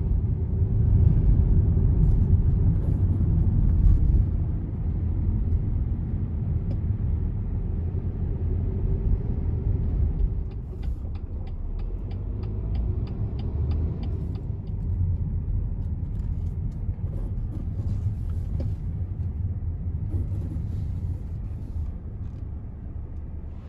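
Car road and engine noise heard from inside the cabin while driving: a steady low rumble, louder for the first few seconds and quieter afterwards. A little before the middle, a regular ticking runs for a few seconds, about three ticks a second.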